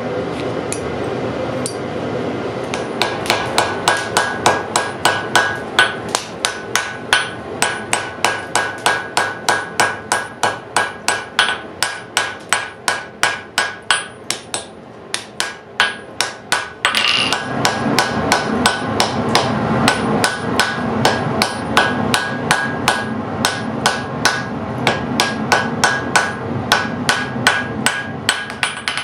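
Hammer blows on steel at an anvil while a blade is forged. The ringing strikes come in a steady rhythm of about three a second, starting a couple of seconds in over a constant rushing background noise. The blows pause briefly past the middle, and the background grows louder after that.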